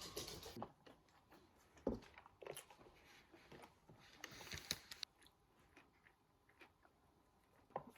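Background music cuts off just under a second in, then near silence with a few faint knocks and rustles.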